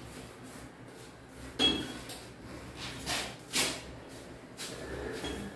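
A few sharp clinks, knocks and scrapes of broken tile, masonry and pipe fragments being handled in a hole in a tiled wall as a cracked pipe elbow is worked out. The loudest, ringing clink comes about a second and a half in.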